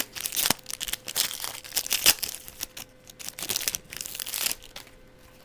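Plastic wrapper of a baseball card pack being torn open and crinkled by hand, with a couple of sharp snaps; the crinkling dies down near the end.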